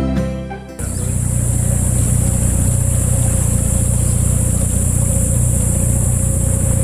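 Dinghy outboard motor running at a steady speed, an even low drone with a steady high hiss above it. A guitar music track ends just under a second in.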